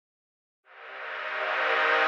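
Intro music fading in after a moment of silence: sustained chords swelling steadily louder.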